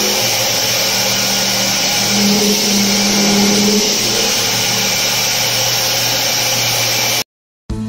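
CNC milling machine's end mill cutting dry through a metal workpiece at high spindle speed: a loud, steady whirring noise with a low hum that swells for a couple of seconds in the middle. It cuts off abruptly near the end.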